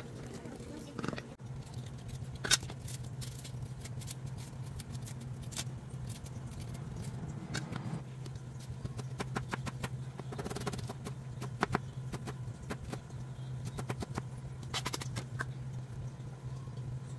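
Kitchen food-prep handling: scattered light clicks and taps of utensils, a steel bowl and spice containers, in small clusters, over a steady low hum.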